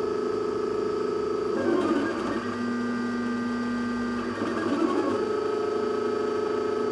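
3D printer running a print, its stepper motors whining with steady tones that shift to a different pitch every second or two as the print head changes speed and direction.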